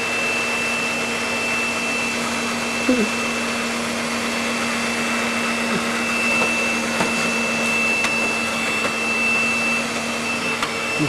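Vacuum cleaner running steadily: a constant rush of air with a steady high whine and a low hum.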